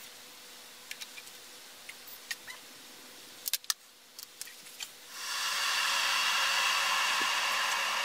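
A few light clicks and taps from a stainless-steel electric kettle, the sharpest about three and a half seconds in as its lid is shut. About five seconds in, the kettle switches on and the water starts a steady hiss as it begins to heat.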